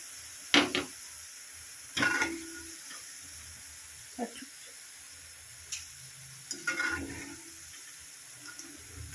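Boondi frying in hot oil in a kadai, a steady sizzle, with a metal ladle knocking and scraping against the pan a few times as the fried boondi is scooped out.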